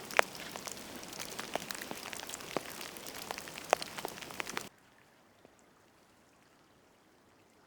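Heavy wet snow falling, a steady soft hiss scattered with irregular ticks as large, wet flakes land like raindrops. It cuts off abruptly to silence a little past halfway through.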